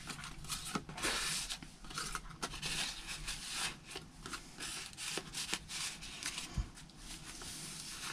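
Thick paper journaling cards and tags handled, slid in and out of paper pockets and shuffled, with the journal's pages turned: irregular rustling and light flicks of card. A soft low thump comes about two-thirds of the way through.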